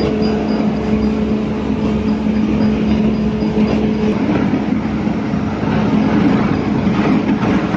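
Rice mill machinery running: a steady, loud mechanical rattle with a constant low hum. A fainter higher tone drops out about four seconds in.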